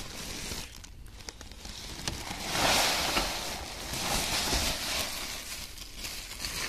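Wheat seed pouring from a woven plastic sack into a metal bin: a steady hiss of running grain that swells about two and a half seconds in and eases off near the end, with the sack rustling and crinkling as it is handled.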